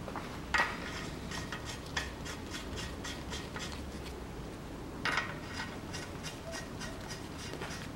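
Wheel bolts being threaded by hand into a car's front wheel hub: light metal clicks and runs of quick ticking as the bolts turn, with sharper clicks about half a second, two seconds and five seconds in.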